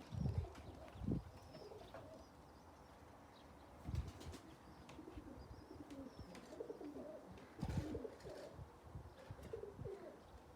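Pigeons cooing softly, with a few dull thumps, the loudest near the start and about four and eight seconds in.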